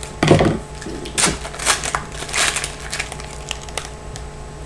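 A foil trading-card pack wrapper crinkling in several short bursts as the pack is opened and the cards are pulled out.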